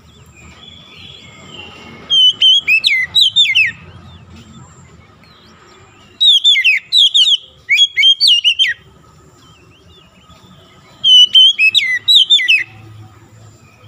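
Oriental magpie-robin singing: three loud bursts of clear whistled phrases, each a quick run of slurred, mostly falling notes, several seconds apart.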